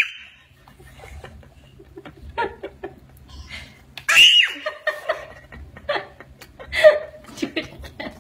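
A toddler laughing in short bursts, with a loud high-pitched squeal about four seconds in and another near the end.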